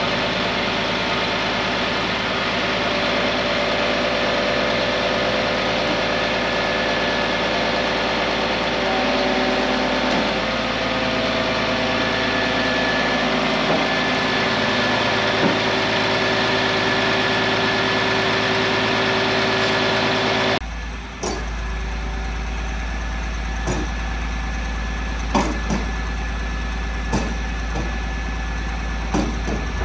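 Diesel engine of a crane lorry running steadily with several droning tones while the lorry-mounted crane works. About two-thirds of the way through it changes abruptly to a deeper, steadier rumble with a few sharp knocks.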